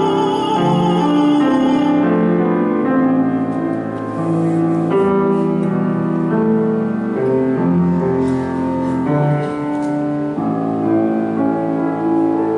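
A countertenor's held, vibrato-laden note over piano accompaniment in a classical art song; the voice ends about two seconds in and the piano plays on alone in slow chords.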